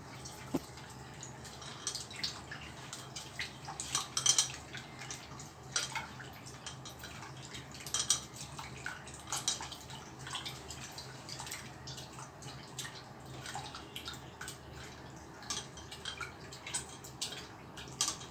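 Tamarind being squeezed and dissolved by hand in a bowl of water: irregular small splashes and drips, with an occasional clink of the vessel, over a low steady hum.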